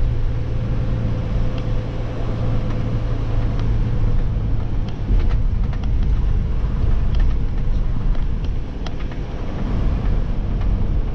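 A vehicle driving along a dirt road, heard from inside the cab. The engine and tyres make a steady low rumble, with scattered small clicks and knocks.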